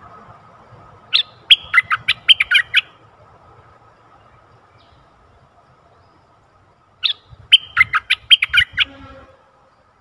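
Caged decoy bulbul singing two short loud phrases, each a quick run of about eight notes. The first comes about a second in, the second at about seven seconds.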